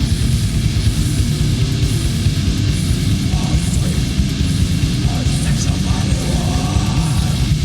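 Raw war metal: distorted electric guitars and drums played fast and dense, with a heavy, muddy low end.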